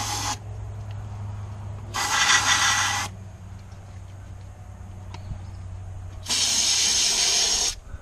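Aerosol carburetor cleaner hissing in short bursts as it is sprayed straight into the carburetors of an outboard engine that isn't running. One burst ends just after the start, another lasts about a second, and a longer one of about a second and a half comes near the end.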